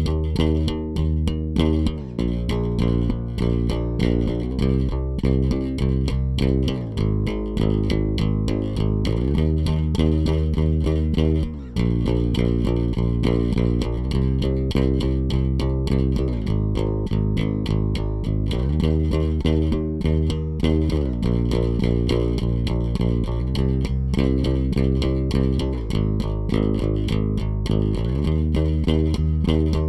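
Warwick Vampyre SN-5 five-string electric bass played solo on its bridge pickup (active MEC dual-J), with the onboard bass and treble EQ turned all the way up. Quick runs of plucked notes, sliding to a new pitch every few seconds.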